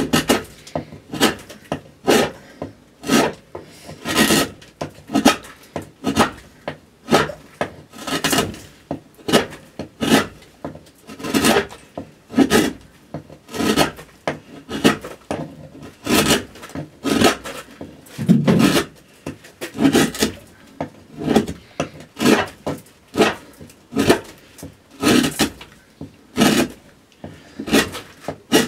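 Hand gouge cutting into a spruce cello top, short scraping strokes repeated roughly one or two a second as the arching is roughed out.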